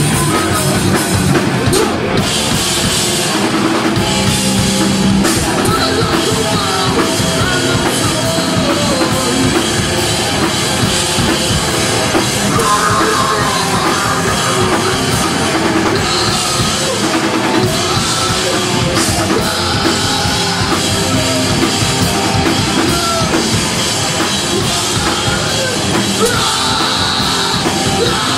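Live rock band playing loud: electric guitars, bass guitar and drum kit through a small venue's PA, heard from within the standing crowd.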